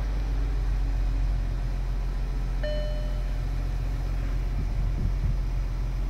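Audi Q7 engine idling steadily. A little before halfway there is one short electronic beep, from the small speaker on the steering column lock emulator board that imitates the lock.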